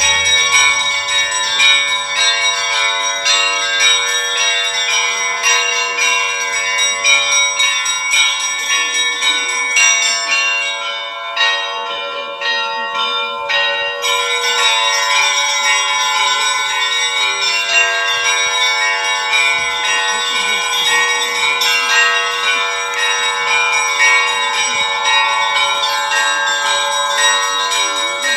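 Russian Orthodox church bells being rung: a dense, rapid rhythm of small bells over the steady ringing of larger bells. About halfway through, the high bells thin out for a few seconds, then come back in.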